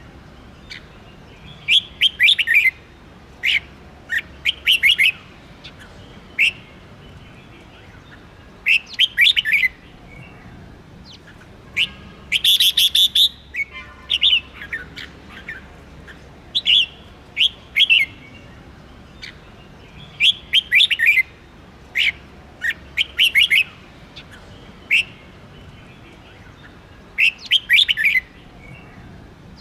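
Red-whiskered bulbul singing: short clusters of quick, sweeping chirps repeated every second or two with brief pauses between. The loudest phrase comes about twelve seconds in, followed by a short buzzy note.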